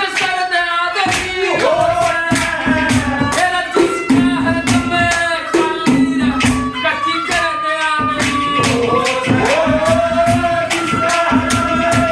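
Haryanvi ragni folk music: a melody that glides and wavers in pitch over a steady, evenly repeating percussion beat.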